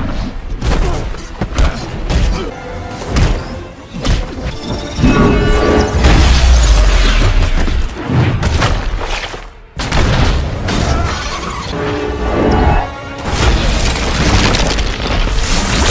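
Action-film soundtrack: a music score under repeated heavy impacts, booms and shattering debris. A deep rumble builds about six seconds in, and there is a short lull just before ten seconds.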